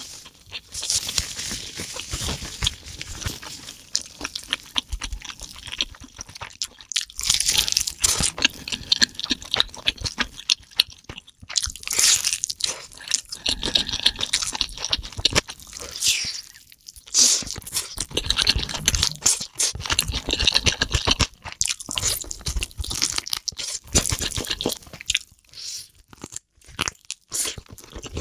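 Close-miked eating: continuous chewing with crisp crunching and crackling that comes in irregular clusters, with short pauses between mouthfuls.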